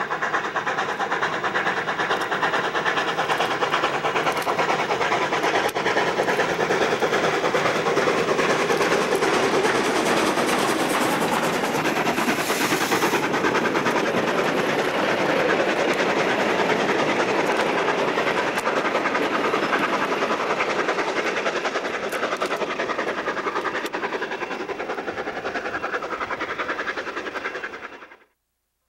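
Sierra Railway No. 28, a Baldwin 2-8-0 steam locomotive, passing with a freight train under steam: a rapid exhaust beat over the clatter of wheels on rail. The sound cuts off suddenly near the end.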